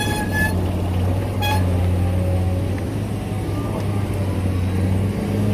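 Large truck's engine running steadily close by, a low even hum. Two brief high-pitched tones sound in the first second and a half.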